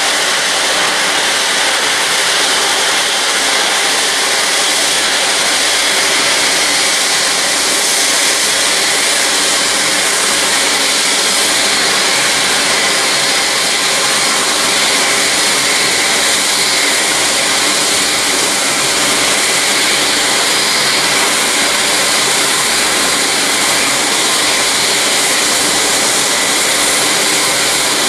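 Twin-engine jet airliner's engines at takeoff power during the takeoff roll and liftoff: a steady, loud rushing noise that holds level without rising or falling.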